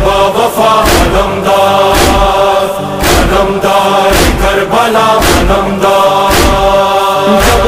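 Opening of an Urdu noha, a Muharram lament: a held, chanted chorus drone over a heavy beat that strikes about once a second.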